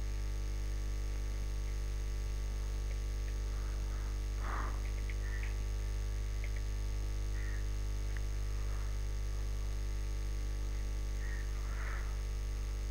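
Steady electrical mains hum with a string of fainter steady tones above it. A few faint, brief background sounds come through about four and a half seconds in and near the end.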